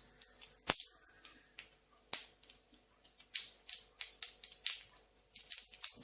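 Mustard seeds spluttering in hot oil in an iron kadai: sharp, irregular pops, a few spaced ones at first, coming faster in the second half. This is the popping stage of tempering, when the seeds are ready for the next ingredients.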